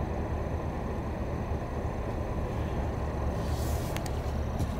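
Pickup truck engine idling with a steady low rumble. A few faint clicks come near the end.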